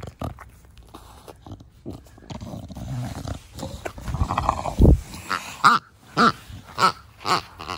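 English bulldog snorting and snuffling as it breathes, the rough 'fugo fugo' breathing of a short-nosed breed. There is one loud, deep snort just under five seconds in, then a run of short, sharp snorts about twice a second as it walks.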